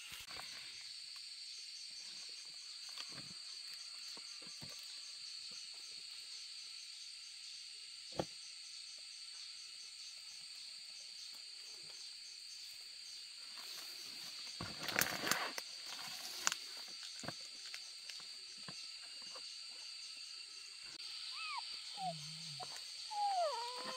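A steady, high-pitched insect chorus. A rustling noise comes about two-thirds of the way through, and a few short rising-and-falling calls come near the end.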